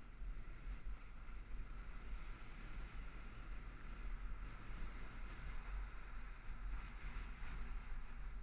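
Wind buffeting the microphone of an action camera riding along on a bicycle: a steady, unevenly pulsing low rumble with a higher rushing hiss over it.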